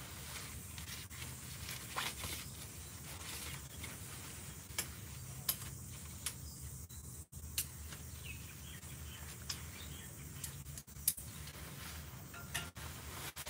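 Rustling and scattered sharp clicks of camping gear being handled and packed away, over a steady low hum.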